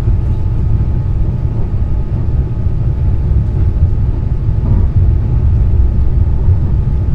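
Passenger train running along the line, heard from inside the carriage: a steady, loud low rumble with a faint steady hum above it.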